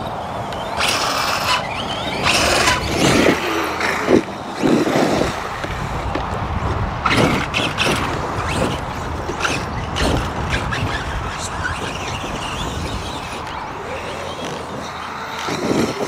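ARRMA 8S brushless RC monster truck driving hard on loose dirt: a motor whine rising and falling with the throttle over steady tyre and dirt noise, with several short knocks as the truck lands or hits the ground.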